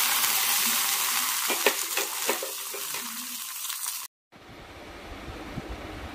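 Hot tempering oil with mustard seeds and curry leaves sizzling on top of a fish curry in a clay pot, with a few sharp pops, slowly dying down. It cuts off suddenly about four seconds in, leaving a quieter steady background rush.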